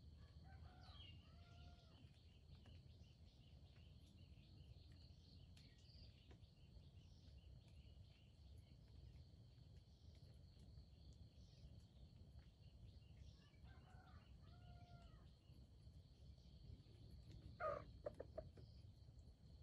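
Faint steady high insect trilling over a low outdoor rumble, with two short bird calls, one about a second in and one around fourteen seconds. Near the end a brief louder cluster of quick sharp sounds stands out.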